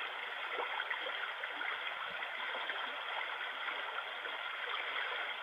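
A white noise machine's small speaker playing its rain setting: a steady hiss of falling or running water with faint little patters, and no high treble.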